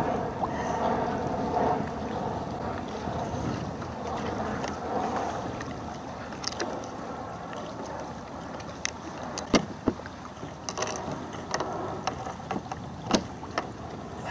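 Water slapping and lapping against a kayak hull, with wind on the microphone. A few sharp clicks and knocks come in the second half.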